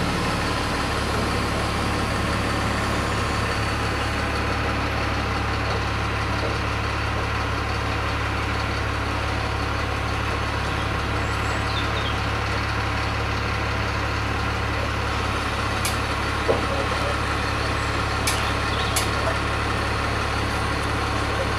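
A steady low drone of an engine running at idle, with a few faint knocks late on.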